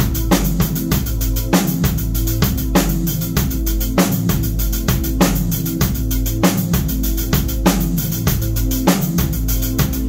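Drum kit played in a steady beat, bass drum, snare and cymbals, over backing music with held low notes.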